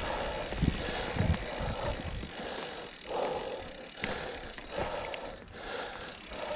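Full-suspension mountain bike rolling downhill on a dirt forest singletrack: tyre noise on the dirt with knocks and rattle from the bike over bumps, heaviest in the first second and a half.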